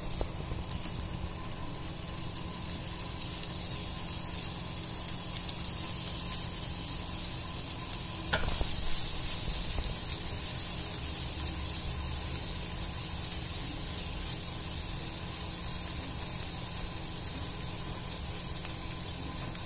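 Paneer sautéing in hot oil in a pan, a steady sizzle over a faint steady hum. About eight seconds in there is a click, and after it the sizzle is louder and brighter.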